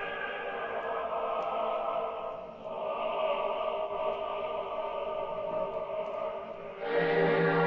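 Operatic music of held, sustained chords with no solo voice, changing chord about two and a half seconds in and swelling louder and fuller near the end.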